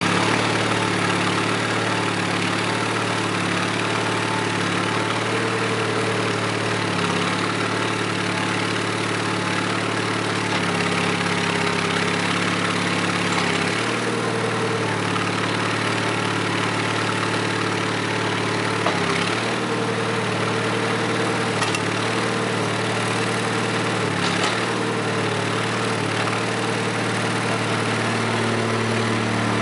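1992 New Holland L250 skid steer loader's engine running steadily at idle, its pitch shifting slightly a few times around the middle.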